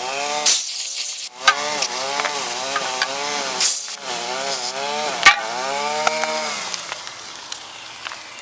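A small engine running in the background, its pitch rising and falling over and over as it is revved and eased, then fading near the end. Two short hisses and a couple of sharp knocks cut in.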